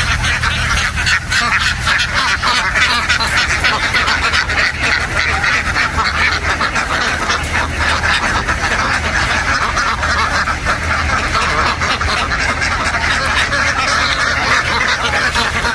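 A large flock of domestic ducks quacking all together in a dense, unbroken chorus, with a low steady hum underneath.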